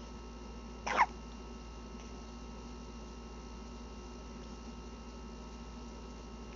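A baby hiccuping once, a short sharp hic about a second in, over a faint steady hum.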